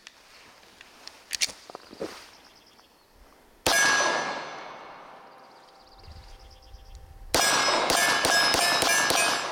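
Walther PPK/S .380 pistol fired at steel targets: a single shot about four seconds in, the struck plate ringing on as it fades, then a quick string of shots near the end, the steel ringing with each hit. A couple of light clicks come earlier, as the magazine is seated.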